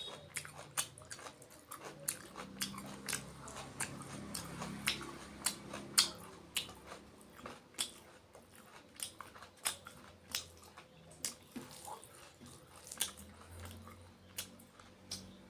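Close-miked eating: a person chewing and biting food, with many sharp, irregular wet clicks and smacks of the mouth.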